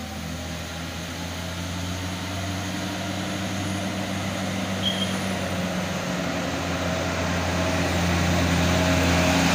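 Diesel engine of a Jetbus 3+ tour bus pulling up a steep hill, a steady low hum that grows gradually louder as the bus approaches.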